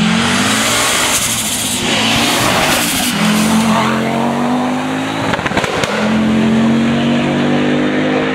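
Audi Quattro A2 Group B rally car's turbocharged inline five-cylinder engine accelerating hard past and away. Its pitch climbs repeatedly through the gears, with a gear change about three seconds in and another, with a few sharp pops, about five and a half seconds in.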